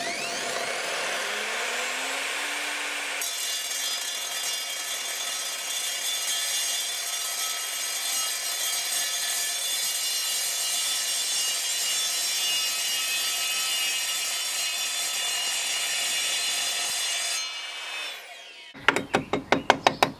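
Evolution R255SMS sliding mitre saw's motor spinning up with a rising whine. Its multi-material blade then cuts through 3 mm steel square box section for about fourteen seconds with a high, ringing metallic screech, and the motor cuts off and winds down with a falling tone. Near the end comes a quick run of sharp knocks.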